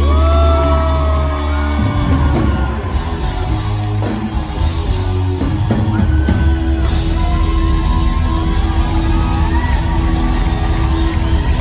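Live rock band and singer performing loud in a large hall. A long sung note slides downward at the start, the heavy bass cuts off about two seconds in, and the band plays on with further vocal lines and shouts.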